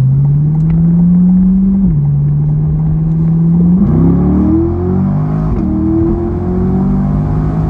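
C8 Corvette's V8 through a custom exhaust, accelerating under load. The engine note climbs in pitch, drops at a gear change about two seconds in, then climbs again from about four seconds in.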